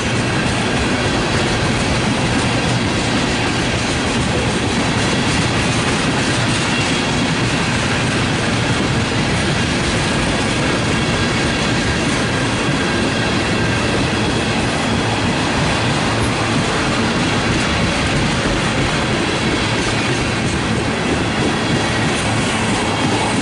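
Freight train of tank cars rolling steadily past: the continuous clatter and rumble of steel wheels on the rails.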